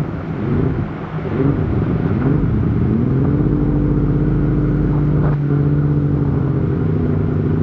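Mini jetboat's two-stroke twin-cylinder engine running under way. Its revs dip and waver over the first couple of seconds, climb about three seconds in, then hold steady.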